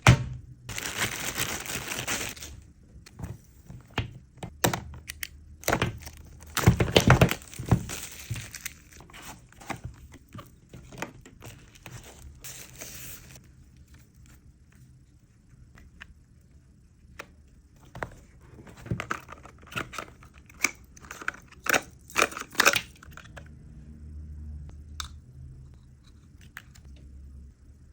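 Packaging being handled and opened: irregular bursts of plastic crinkling and tearing, mixed with small clicks and knocks of the parts being handled, over a low room hum.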